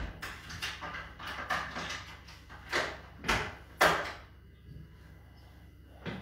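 A quick run of short rustling and knocking handling noises, the three loudest close together a little past three seconds in, then they die away.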